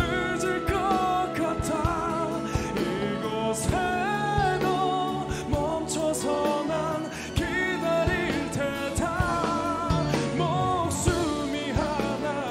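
Male pop singer singing a slow Korean ballad live, with long held notes and vibrato, over a backing band with drums.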